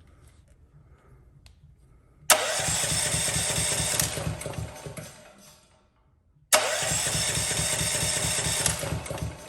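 Honda GX390 engine being cranked by its electric starter in two tries of about two and a half seconds each, the second a second or so after the first ends; it turns over rhythmically but never fires: a crank-no-start, with the on/start switch already bypassed and ruled out.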